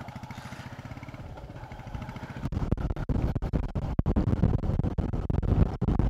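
Motorcycle engine running with an even low thudding, then getting louder and rougher about two and a half seconds in as the bike pulls away, with a heavy low rumble from then on.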